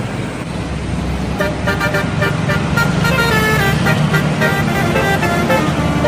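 Indonesian bus's telolet horn playing a fast tune of many short notes, some in falling runs, starting about a second and a half in, over the rumble of the bus engine and traffic.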